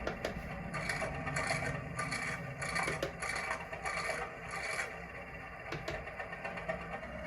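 Sound-decoder speaker in a model Class 205 'Thumper' DEMU playing one of its sound functions: a rhythmic rasping scrape, about eight strokes a little over half a second apart, stopping about five seconds in. A faint low hum runs underneath.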